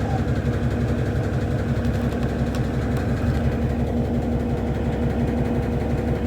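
Electrolux LAC09 washing machine spinning at speed on its turbo drying function: a steady motor hum with a constant whine and a fast, rattling low rumble from the drum. It is picked up through the machine's shaking top.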